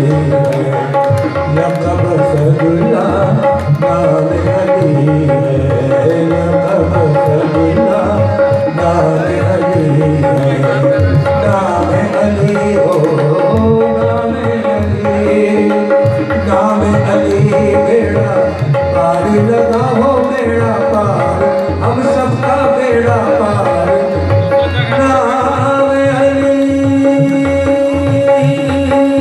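Live ghazal music: tabla playing a fast, continuous rhythm under a harmonium holding a steady note, with a man's singing voice coming in at times.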